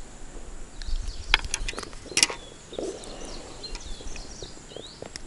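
A few sharp clicks and taps from hands handling fishing tackle and a small caught fish, then a run of short chirping bird calls through the second half.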